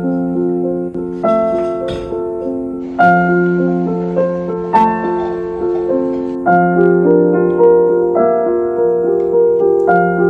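Background piano music: soft, slow chords, each struck and left to fade before the next comes in every second or two.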